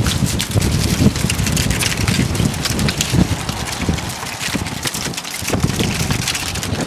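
Wind buffeting the microphone: an uneven low rumble in gusts, with crackles.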